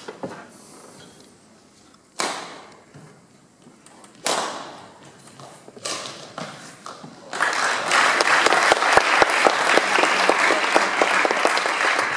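Three sharp strikes of badminton rackets on the shuttlecock, about two seconds apart, echoing in a sports hall. About seven seconds in, audience applause starts and carries on; it is the loudest sound.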